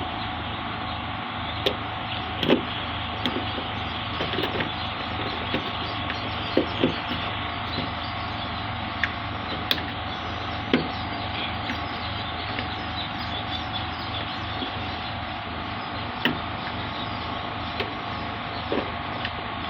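A steady mechanical hum with a few held tones, and scattered sharp clicks and taps, about a dozen, irregularly spaced.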